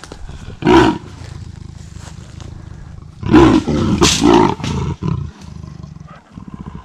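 Wild leopard caught in a steel cage trap growling and snarling: one short burst about a second in, then a longer run of loud growls around the middle, the sound of a cornered cat as people approach the trap.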